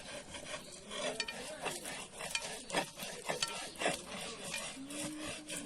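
A utensil stirring and scraping in a cooking pot, in short, irregular strokes with light clicks against the pot.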